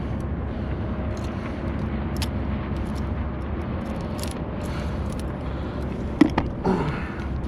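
Steady low rumble with scattered light clicks and knocks from handling a freshly caught freshwater drum and gear in a kayak.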